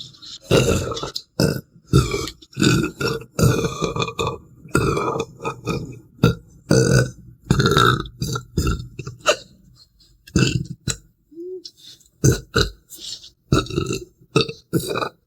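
A person belching over and over, a quick string of loud burps, some drawn out and pitched, with a short lull about two-thirds of the way through.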